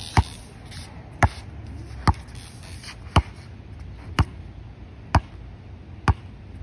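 Basketball dribbled on an outdoor hard court: seven sharp bounces, slow and even at about one a second.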